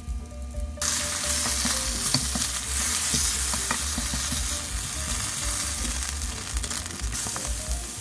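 Flour-coated pork neck steaks sizzling loudly as they fry in a stainless steel pan, with a few light clicks of a slotted spoon against the pan. The sizzle cuts in abruptly about a second in, after a moment of background music alone, and the music carries on faintly beneath it.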